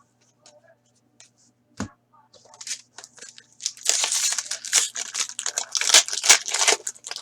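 A foil trading-card pack wrapper being torn and crinkled, with cards rustling. A few light clicks and a soft knock come first, then steady tearing and crinkling about four seconds in that carries on for around three seconds.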